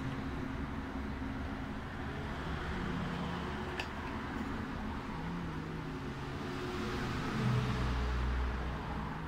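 Steady rumble of motor vehicles running, with low engine hums that shift in pitch and are loudest about eight seconds in, and a single light click about four seconds in.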